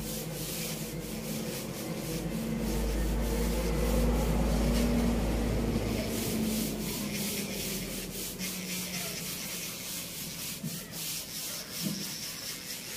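Electric nail drill grinding down a toenail with a sanding bit: a steady motor hum under a scratchy sanding sound as the bit works the nail. A low rumble swells and fades between about three and six seconds in.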